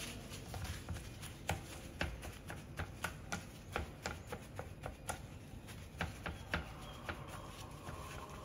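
Light, irregular taps and paper rustling as a paper towel is dabbed over sausages on a plastic cutting board to blot off the water from thawing. The taps thin out about seven seconds in.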